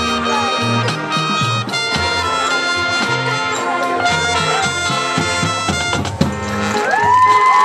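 Marching band playing with the brass to the fore: trumpets and trombones holding chords over moving low brass notes.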